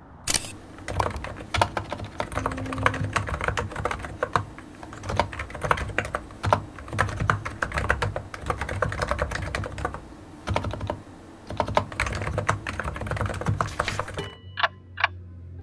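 Typing on a computer keyboard: a quick, uneven run of key clicks that stops about a second before the end, followed by two short high-pitched blips.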